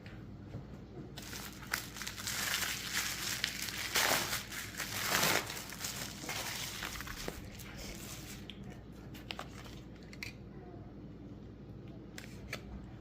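Packaging crinkling and rustling as it is handled, heaviest from about a second in until about eight seconds, followed by a few light clicks and taps.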